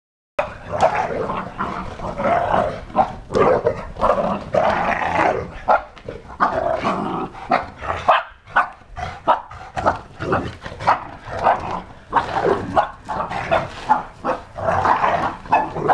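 Dogs barking and growling in rough play, with many short sharp barks over stretches of play growling.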